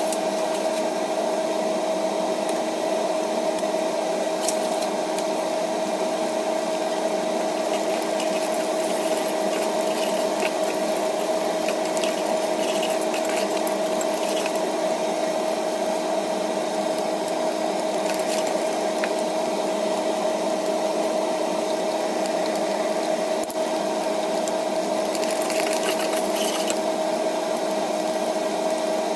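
A steady machine hum with a constant drone runs throughout. Over it, a metal spatula scrapes and taps against a clay pot as eggs and onions are stirred, with clusters of scraping toward the middle and near the end.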